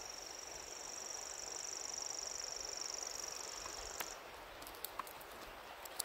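A steady, high-pitched, insect-like reeling trill that cuts off suddenly about four seconds in, followed by a few faint scattered clicks.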